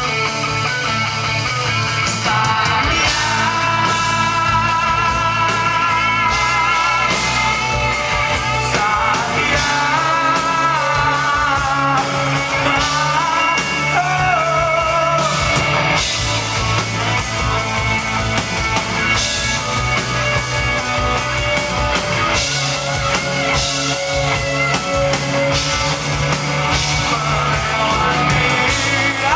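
Live rock band playing loud: electric guitars, bass and drums, with a man singing lead.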